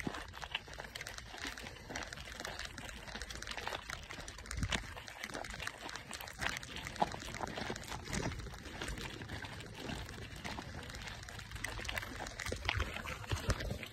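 Mountain bike riding fast over a dirt and gravel trail: tyres crunching over loose stones, with frequent small clicks and rattles from the bike and a low rumble of wind on the phone's microphone.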